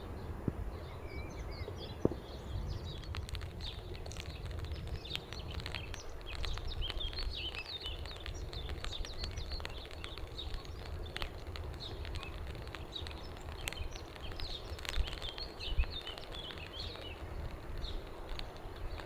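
Small birds singing a busy run of short chirps and trills, with scattered light ticks and a steady low rumble beneath.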